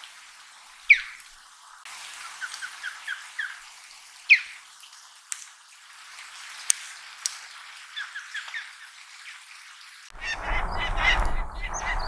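Osprey calling: short series of quick, thin whistled 'kyok-kyok' notes, with two louder sharp calls among them. About ten seconds in, an abrupt change to a peregrine falcon's rapid repeated 'kii-kii' calls over a low rumble of wind.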